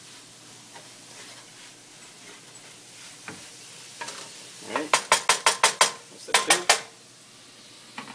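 Ground beef with peppers and onions sizzling in a nonstick skillet while being stirred with a spatula. Near the middle comes a quick run of loud, sharp knocks, about six, a short pause, then three more.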